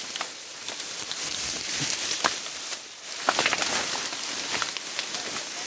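Dry grass rustling and crackling as it is handled, with scattered light clicks and taps.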